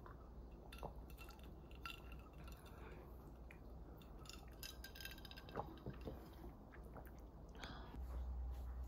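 Faint, scattered light clicks and clinks of a pen and small objects handled on a wooden study table, over a low steady hum that grows louder near the end.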